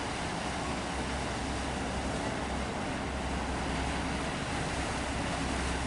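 Steady low drone of an approaching car ferry's engines, mixed with the hiss of wind and choppy water.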